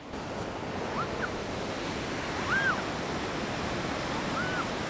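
Steady rush of a large volume of fast-flowing white water at a waterfall: the Waikato River pouring through Huka Falls.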